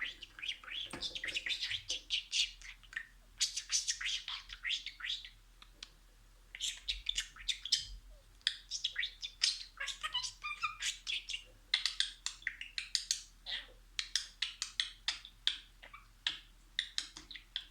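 Budgerigar chattering and warbling: quick runs of high chirps, squeaks and trills, with a short pause about two seconds in and another near six seconds.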